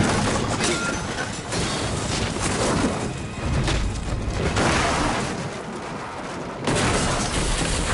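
Stagecoach crash stunt: loud rumbling and crashing as the coach overturns and rolls, heaviest in the low end about four seconds in, changing abruptly near the end.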